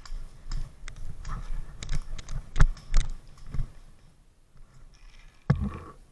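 A string of irregular sharp knocks and clicks, about seven in five seconds, the loudest two close together near the middle, over a low rumble.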